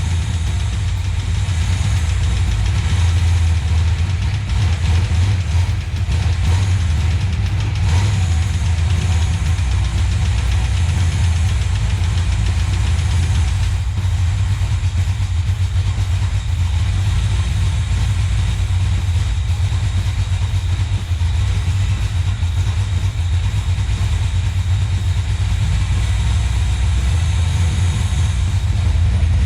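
Holden VC Commodore engine idling steadily with a loud, deep exhaust note, freshly started and running on a different cam and a bigger throttle body, not yet tuned.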